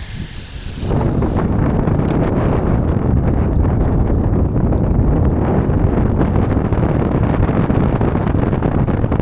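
Steady wind buffeting the microphone, a loud low rumbling rush that sets in about a second in and holds steady.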